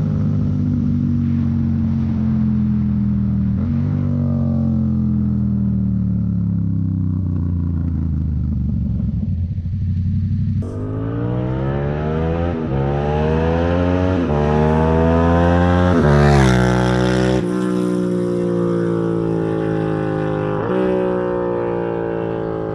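Yamaha MT-07's parallel-twin engine running through an unbaffled full-system exhaust, very loud. The revs fall away at first, then climb hard through about three gear changes to a peak and fall off again as the bike slows, with one more shift near the end.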